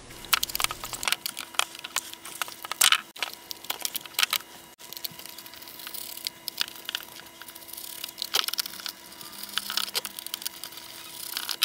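Plastic case of a handheld oscilloscope being handled and opened with a tool: an irregular string of sharp clicks, cracks and scrapes as the back shell is worked loose.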